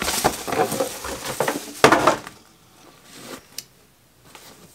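Plastic and paper packing crinkling and rustling as it is pulled out of a boot box, dense and loud for about two seconds. Then quieter handling with a few light clicks as the boot comes out.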